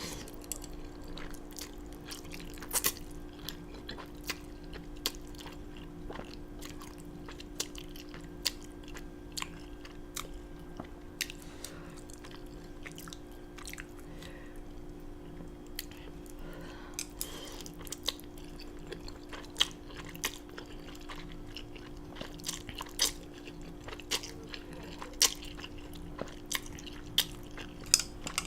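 A person chewing food close to the microphone, with many sharp, wet mouth clicks scattered throughout and more of them near the end, over a steady hum.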